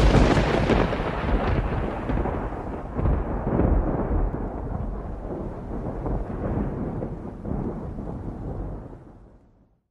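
A thunderclap rumbling, loudest at the start, rolling on with a few swells and dying away about nine seconds in.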